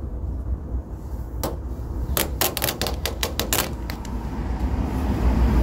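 Paper backing of a vinyl decal crackling and snapping as it is peeled off, a quick run of about ten sharp clicks over a second and a half after one lone click. A steady low rumble lies underneath and swells near the end.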